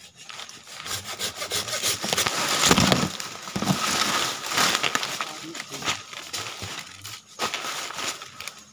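Hand pruning saw cutting through a cashew tree branch: rough back-and-forth rasping strokes that start about a second in, are loudest near three seconds and ease off near the end.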